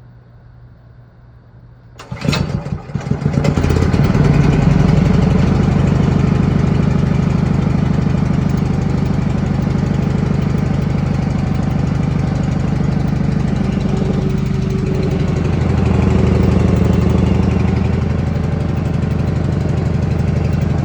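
Hart 3600-watt portable generator's gas engine starting about two seconds in, then running steadily and loudly.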